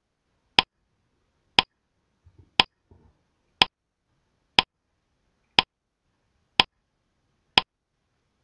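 Countdown timer sound effect ticking like a clock, one tick a second, eight ticks in all.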